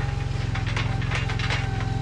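OMC Mustang 330 skid steer's engine running steadily, with scattered clicks and knocks over it.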